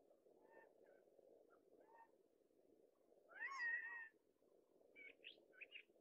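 Male Gambel's quail giving a single loud, drawn-out advertising call about three seconds in, the call of an unmated male announcing his breeding availability. Faint short call notes come before it and three short quick notes near the end, over steady wind noise.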